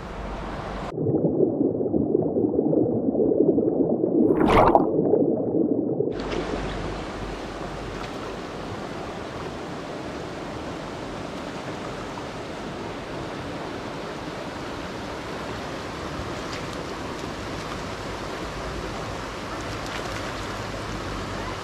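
Shallow, fast river running over a stony bed, a steady rush of water. About a second in, the sound turns muffled and louder for some five seconds, with one sharp burst near the middle of that stretch, before the plain steady rush returns.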